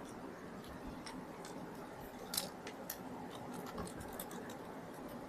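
Faint, irregular small clicks and ticks of a precision screwdriver driving the small screws of a laptop's bottom cover, with a sharper click about two and a half seconds in.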